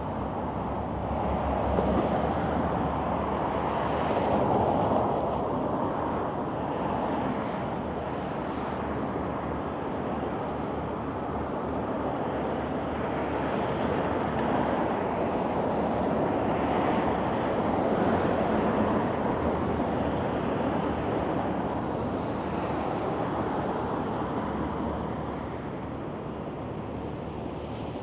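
City street traffic: cars passing one after another, their tyre and engine noise swelling and fading over a steady background hum.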